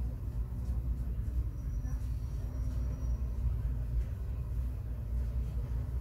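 Steady low background rumble, with faint voices behind it.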